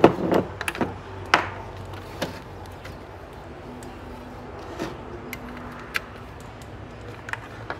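Handling knocks and clicks as an opened DVD player's sheet-metal case is tilted up and an RCA plug is pushed into a jack on its rear panel. The loudest knocks come right at the start, then single clicks every second or so, over a faint steady low hum.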